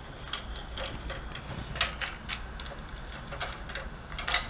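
Scattered light clicks and rattles of a baby handling toys in a crib, heard through a baby monitor's speaker over a low hum, with a louder clack at the very end.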